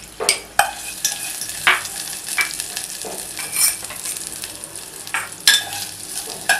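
Chopped garlic and ginger sizzling in a teaspoon of hot oil in a small pot, with a spoon stirring and scraping the pot in irregular strokes.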